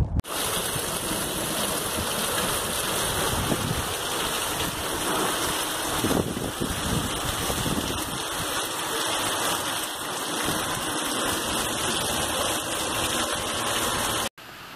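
Steady rushing noise of hurricane wind and heavy rain, with uneven low gusting underneath. It cuts off suddenly near the end.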